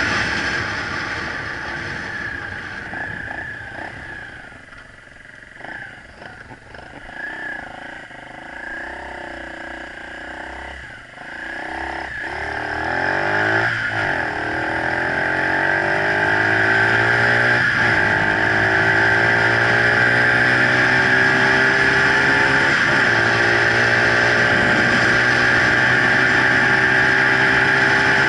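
Romet CRS 50/80 small motorcycle engine under way. For the first ten seconds or so it eases off and the sound falls away. Then it revs up through the gears, its pitch climbing and dropping back at each of about four shifts, and settles into a steady, loud cruise.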